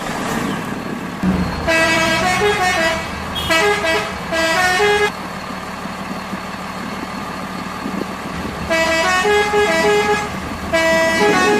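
Truck sound effect: an engine runs steadily while a multi-tone musical horn honks short stepping tunes in four bursts, with a pause in the middle.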